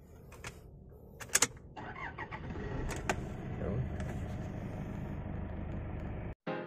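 A couple of sharp clicks inside a car, then from about two seconds in the car starts up and runs steadily with a low hum. The hum cuts off suddenly near the end.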